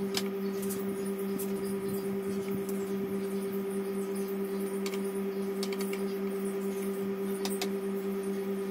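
A steady, unchanging low drone of background music held on two notes, with a few light clicks and taps of hands working a fondant rope on a stone countertop.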